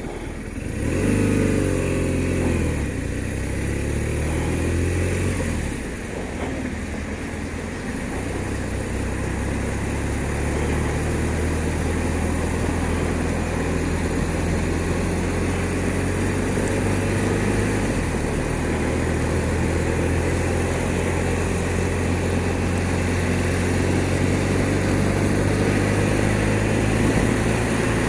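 BMW R1200RT boxer-twin engine pulling away about a second in, its revs rising and dropping back over the next few seconds, then running steadily at a cruise, with wind and road noise throughout.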